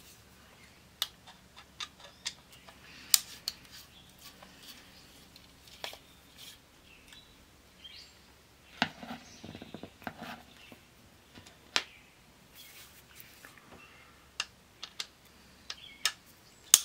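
A screwdriver and small parts clicking and tapping against the plastic frame of a CD changer's laser deck as screws are worked out. Scattered sharp clicks, with a short spell of rattling about nine seconds in and a loud click near the end.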